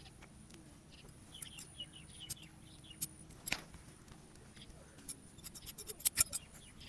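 Scissors snipping hair in sharp clicks: a few quick snips about a second and a half in, single snips around three seconds, and a fast run of snips from about five seconds in.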